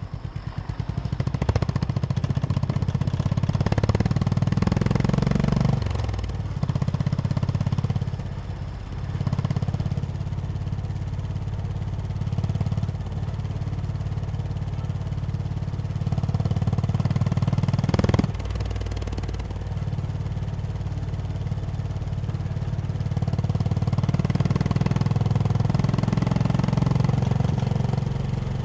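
Honda CB350 H'ness's air-cooled single-cylinder engine running while riding, its exhaust note rising and falling with the throttle and dipping briefly twice in the first ten seconds. A single sharp knock sounds about eighteen seconds in.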